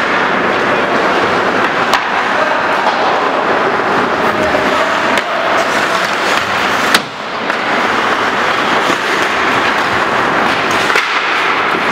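Ice hockey play in a reverberant rink: skate blades scraping the ice in a steady, dense hiss, with a few sharp clacks of sticks and puck, the loudest about seven seconds in.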